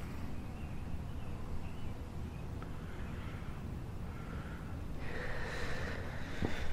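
A person breathing close to the microphone over a steady low background rumble, the breath growing louder about five seconds in.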